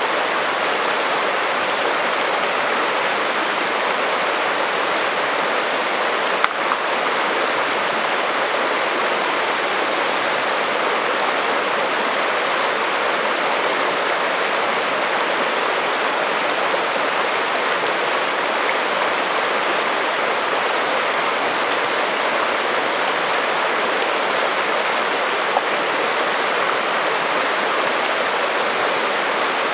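Shallow alpine creek running steadily over cobbles and rocks: an even rushing and babbling of water. There is one brief click about a fifth of the way in and another near the end.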